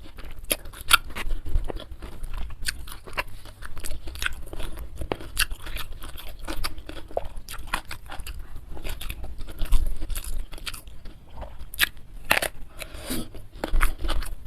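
A person chewing and crunching food close to the microphone, with many sharp, irregular crunches.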